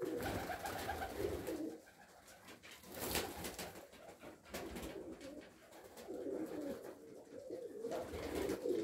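Domestic fighting (boyny) pigeons cooing in a loft, in bouts with short quiet gaps between.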